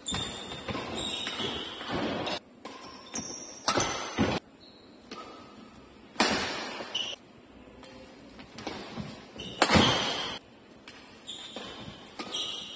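Badminton rally: sharp racket strikes on the shuttlecock, the loudest about four, six and ten seconds in, echoing in a large hall. Between the hits, court shoes give brief high squeaks on the floor.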